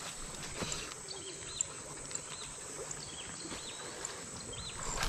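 A bird calling over and over in short notes that rise and fall, about one or two a second.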